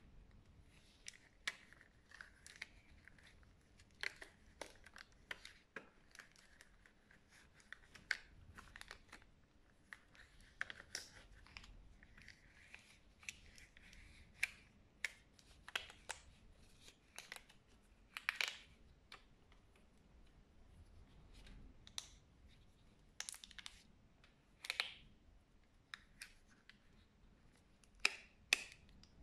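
Medical latex gloves being pulled on and smoothed over the fingers and wrist: faint rubbing and stretching of the rubber, with irregular sharp snaps and clicks.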